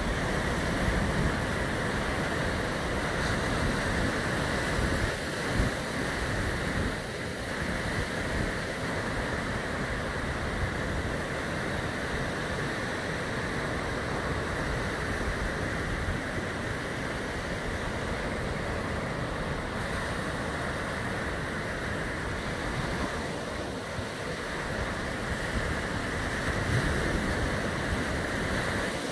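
Small surf breaking and washing up a sandy beach in a steady wash of noise, with wind buffeting the microphone.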